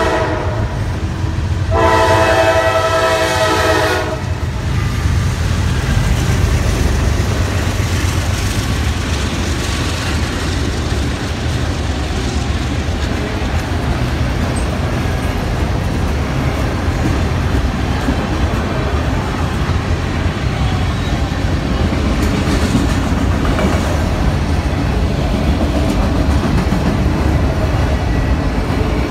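Freight train passing close by. A locomotive air horn sounds a brief blast at the very start, then a louder blast about two seconds in that lasts about two seconds. After that comes the steady rumble of hopper and tank cars rolling past on the rails.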